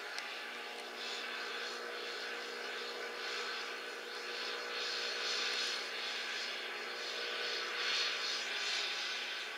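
Distant ship's engine droning steadily as the vessel gets under way, a constant hum with a hiss over it that swells and fades every few seconds.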